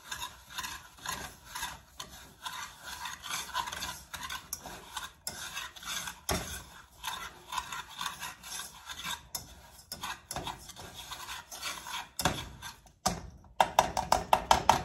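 Wire whisk stirring granulated sugar with lemon juice and water in a nonstick pot, a gritty scraping of repeated strokes against the pan. Near the end comes a quick run of sharp taps.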